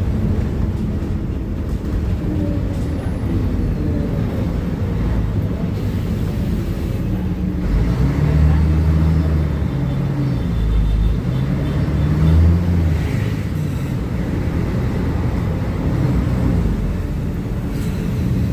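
Diesel engine of a Mercedes-Benz O500UA super-articulated BRT bus running steadily. Its note rises and falls twice as it revs, about eight and twelve seconds in.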